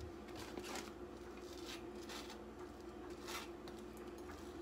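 Soft scraping and rubbing at an opened glass jar of apple jelly, several short strokes, over a faint steady low hum.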